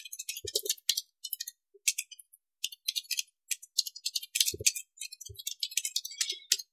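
Typing on a computer keyboard: a rapid, irregular run of keystroke clicks, with a few heavier key thumps about half a second in and again around four and a half and five seconds in.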